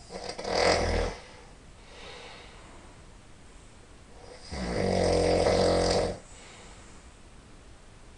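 A person snoring really loudly in sleep: a short snore near the start, a faint breath about two seconds in, then a longer rattling snore of about a second and a half past the middle.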